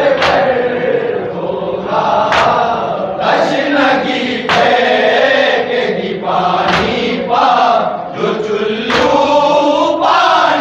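Men's voices chanting a mourning salam in unison, a sung lament with the group joining the reciter, punctuated by sharp hand slaps of chest-beating (matam) about every two seconds.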